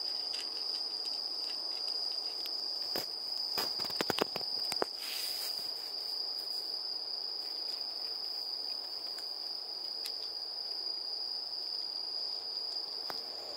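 Crickets chirring in one unbroken, high, steady trill, with a cluster of short sharp clicks about three to five seconds in.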